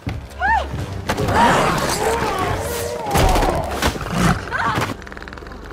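Action-film soundtrack: music under a few thuds and wavering vocal cries, which die down to a quieter stretch near the end.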